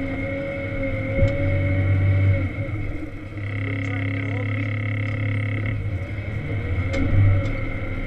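Volvo L70 wheel loader's diesel engine running under load, heard from inside the cab, with a low steady rumble and a steady high-pitched whine. The whine grows louder for about two seconds near the middle. A mid-pitched whine holds at the start and drops away before halfway.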